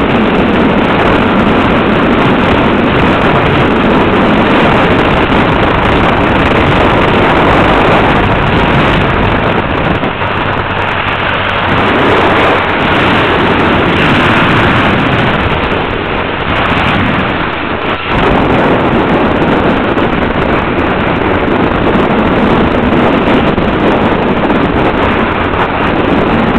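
Wind rushing over the microphone of a camera carried on a moving motorcycle, with the motorcycle's engine running underneath. The sound is steady and heavy, with brief dips about ten and eighteen seconds in.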